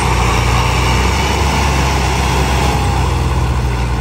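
Diesel tractor engines running hard under heavy load, one tractor towing another that is hitched to a stuck, loaded sugarcane trolley. A steady, loud, deep engine sound.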